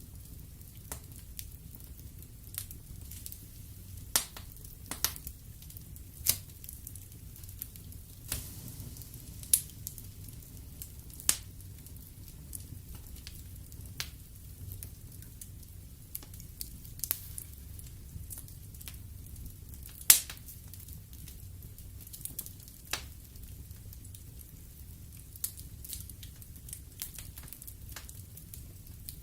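Wood fire burning in a fireplace: irregular sharp crackles and pops from the burning logs over a low steady rumble, with the loudest pop about twenty seconds in.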